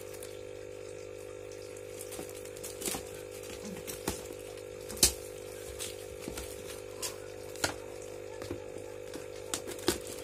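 A cardboard box being opened and handled: scattered rustles, scrapes and sharp knocks, the loudest about halfway through. Underneath runs the steady hum of an aquarium air pump.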